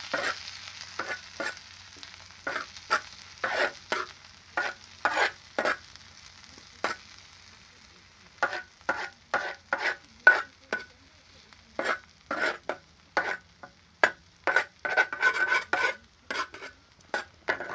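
Steel spoon scraping and stirring chopped green chilli, coriander and onion in hot oil in a black wok, in irregular short strokes. The oil sizzles at first, fading over the first few seconds.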